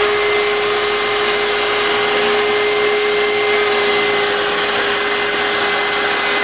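Electrolux Pure i9 robot vacuum running, a steady suction-fan rush with a constant high motor whine over it. It is working normally again after being soaked in rain.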